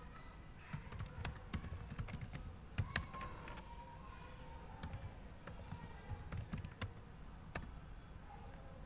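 Keystrokes on a computer keyboard: irregular bursts of typing with short clicks at an uneven pace, as terminal commands are entered.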